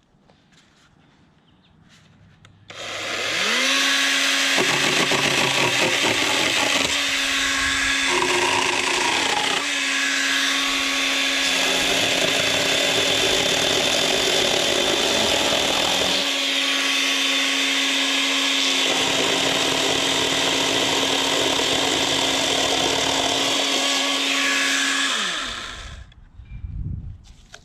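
Greenworks Pro 80V battery-powered electric chainsaw with a 16-inch bar. It spins up about three seconds in and runs with a steady whine while the chain cuts through a 3 to 4 inch branch, its sound roughening in stretches as it bites the wood. It winds down near the end.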